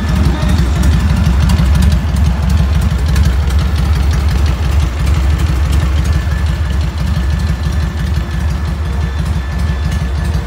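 Harley-Davidson Heritage Softail Classic's V-twin engine idling steadily, a fast, even low pulsing.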